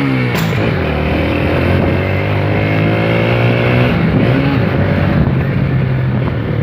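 Honda CG Titan single-cylinder motorcycle engine running under way, its note dropping right at the start and then holding steady, with wind rushing over the microphone.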